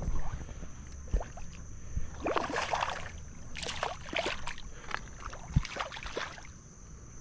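Water splashing in a creek in a few short, rough bursts, with scattered knocks and a steady high-pitched whine underneath.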